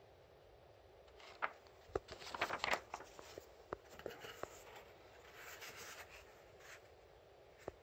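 Cardboard box and foam packing insert being handled. A cluster of sharp taps and rustles comes first, then a scratchy rustle as the foam top piece is worked loose from the box, and a single tap near the end.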